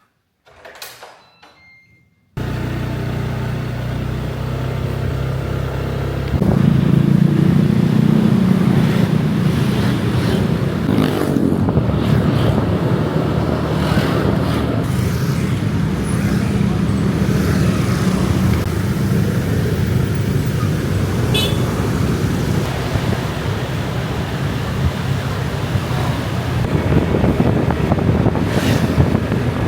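Steady road-traffic noise: a low rumble of vehicles over an even hiss, cutting in abruptly about two seconds in and running on with a few brief swells.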